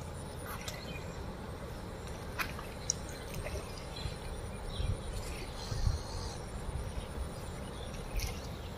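Open-air riverbank ambience: a steady low rumble of wind and moving floodwater, with scattered short insect chirps and a faint steady high trill above it.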